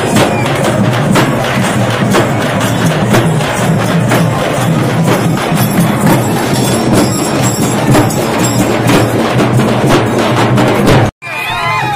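A band of folk drums and a struck metal plate played together in a fast, dense rhythm. The drumming cuts off abruptly near the end.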